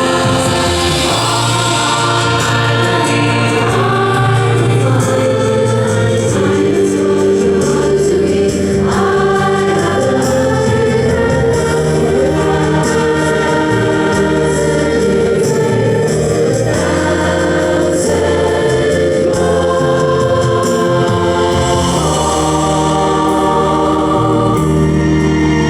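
A choir singing held chords that change every few seconds, at a steady, loud level.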